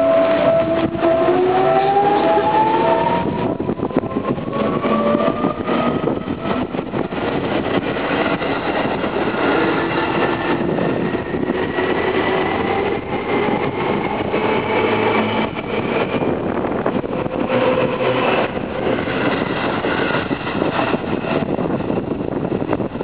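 Seibu Ikebukuro Line electric train accelerating past, its traction motors whining in several tones that climb steadily in pitch over the first fifteen seconds or so, over the steady rumble and clatter of wheels on rail.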